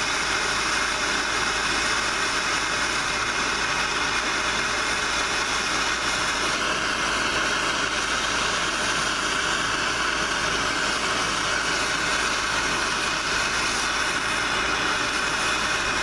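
MAPP gas hand torch burning with a steady hiss as its flame is held on a padlock body.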